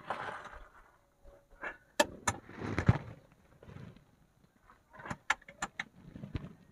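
Sharp metallic clinks of hand tools on the Mitsubishi 4D56 diesel's injection pump mounting, with scraping and rustling of hands in the engine bay; the engine is not running. Two clinks come about two seconds in and a quick cluster near the end, as the pump is shifted and its bolts worked to set the injection timing.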